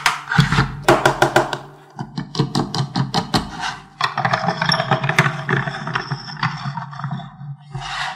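Plastic toy vehicle rattling and clicking rapidly in spells of about two seconds, over a low steady hum.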